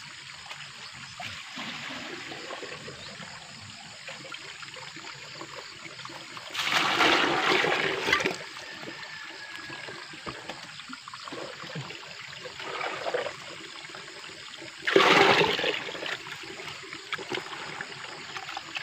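A thin spring-water trickle running steadily into a bucket, with water poured out in two loud splashing gushes: the first lasts about a second and a half and starts about six seconds in, the second is shorter and comes about fifteen seconds in.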